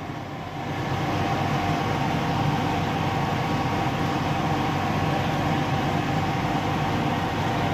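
An engine running steadily: a constant low hum with a few fixed tones and no change in pitch, growing louder about a second in and then holding level.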